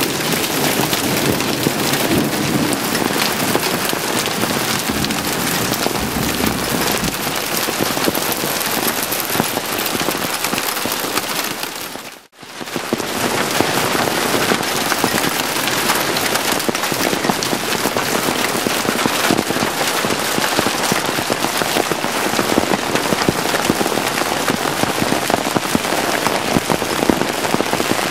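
Hail and heavy rain pelting down: a dense, steady clatter of countless small impacts, cut off briefly about twelve seconds in.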